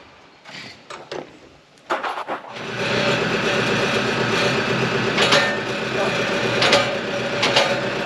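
Engine running steadily, coming in about two and a half seconds in after a few sharp knocks in near quiet.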